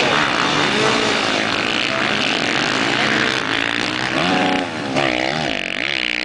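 Several supermoto race motorcycles revving and accelerating away from the start. The engines' pitch keeps climbing and dropping, swinging up and down quickly from about three seconds in.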